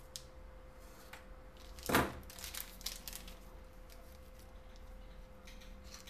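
Small tools and parts handled on a workbench: one sharp knock about two seconds in, then a quick run of light clicks and rustles, over a faint steady hum.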